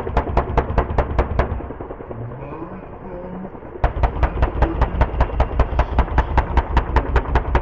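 AH-64 Apache attack helicopter: rapid, evenly spaced sharp thumps about five a second over a low rumble. They come in two runs, with a gap of rumble between them from about a second and a half in to nearly four seconds in.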